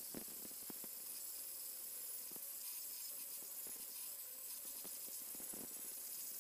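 Angle grinder grinding a steel bar: a steady hiss of the disc on the metal over a steady motor whine, with scattered light clicks.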